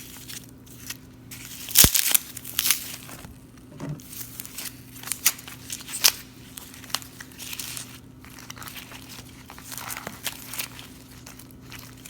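Foam packing peanuts crunching and crackling irregularly as they are broken up and kneaded into slime by hand, with a faint steady electrical hum underneath.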